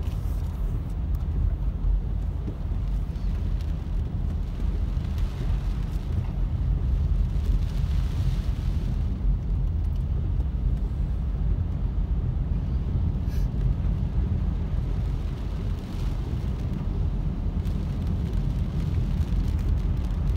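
A car driving on a rain-soaked road, heard from inside the cabin: a steady low rumble of engine and tyres on wet pavement.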